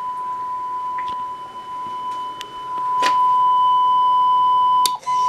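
Steady single-pitch audio test tone played back from a Betacam SP tape, getting louder about three seconds in, with a few faint clicks and a brief dropout near the end.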